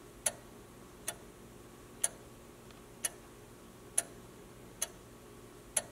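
A clock ticking steadily about once a second, the ticks slightly uneven in spacing and loudness in a tick-tock pattern, over a faint steady hum.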